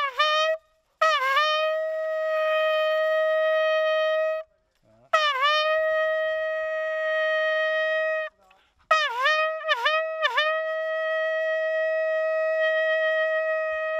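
English hunting horn blown on a single note. A short blast comes first, then two long held notes, then three quick broken notes that run into a long held note near the end, each note scooping up slightly in pitch as it starts.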